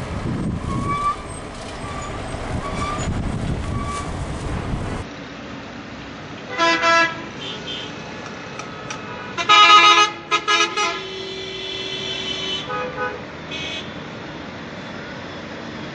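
Coach bus horns blowing loud multi-tone blasts. A low engine rumble with faint short toots comes first. Then, after a cut, there is a double blast, a louder cluster of blasts with one note held for a couple of seconds, and a few short toots.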